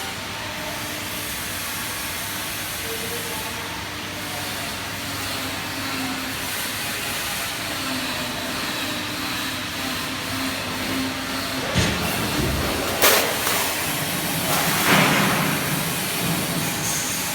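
CNC sheet-metal shearing machine running with a steady hiss. About twelve seconds in it gives a louder working stroke with a sharp clank, then a second loud, hissing surge a couple of seconds later.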